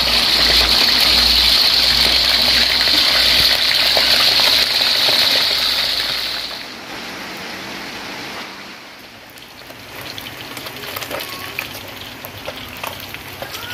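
Fish frying in hot oil in a wok: a loud, steady sizzle that drops away suddenly about six and a half seconds in, then quieter sizzling with scattered pops and crackles.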